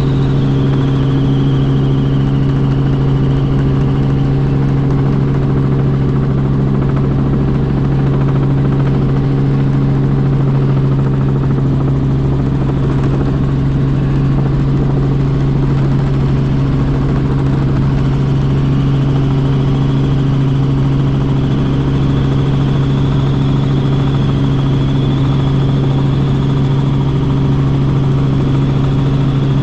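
Robinson R44 Raven II helicopter in flight: a steady, loud drone of the engine and rotors with a constant low hum. A faint high whine sits above it, fading after a few seconds and returning later on.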